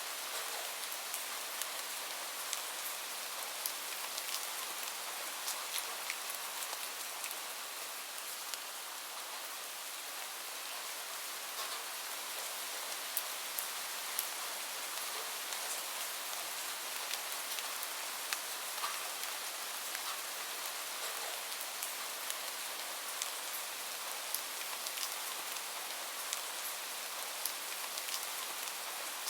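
Steady rainfall, a constant hiss with many individual drops ticking sharply on a surface throughout.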